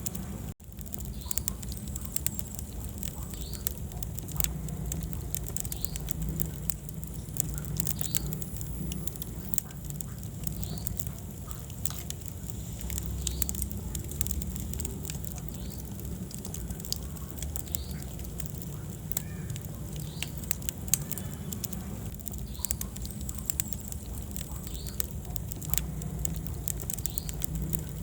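Wood fire burning in a fireplace: steady crackling with many sharp pops over a low rumble of flames. The sound briefly drops out about half a second in.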